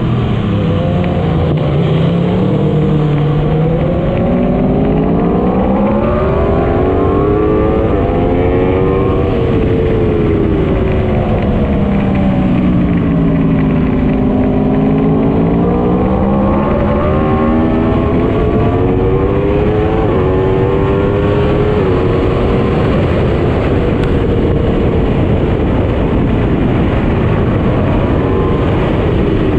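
Motorcycle engine heard from on board at track speed, its revs climbing and falling again and again through the corners, over a steady rush of wind noise.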